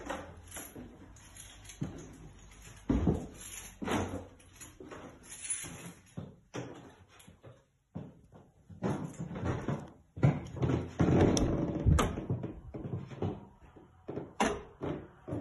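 Footsteps thudding irregularly on wooden stairs and landing, then a door latch clicking and an interior door being pushed open, with the loudest knocks and rattles about ten to twelve seconds in.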